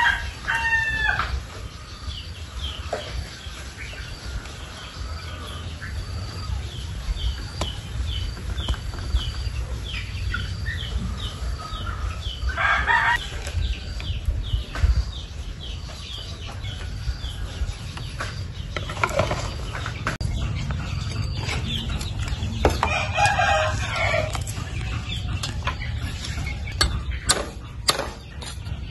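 Roosters crowing several times and chickens clucking, over a steady low rumble. Near the end come a few sharp taps of a cleaver on a wooden chopping block.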